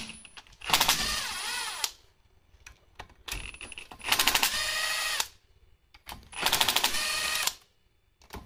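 Cordless impact driver with a socket bit turning a bolt on a Ford 3-valve cam phaser, in three short runs of one to two seconds each, and a fourth starting at the very end. Each run opens with a rapid clicking rattle and goes on as a motor whine that bends in pitch.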